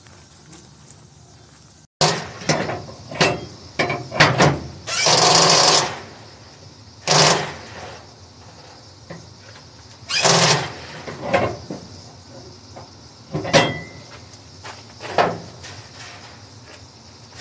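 Flatbed trailer strap winches being tightened with a steel winch bar: sharp metallic clanks and bursts of rapid ratchet clicking starting about two seconds in, the longest burst about five seconds in and another near ten seconds.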